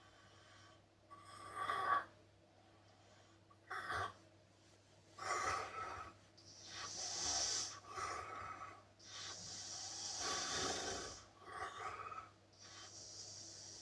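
A man snoring in his sleep: irregular, rasping breaths of varying length with short quiet gaps, the two longest about seven and ten seconds in.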